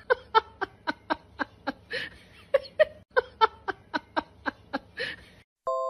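Short, high-pitched voiced pulses repeated about four times a second, like giggling, in two runs with a brief break just past halfway, cut off shortly before the end.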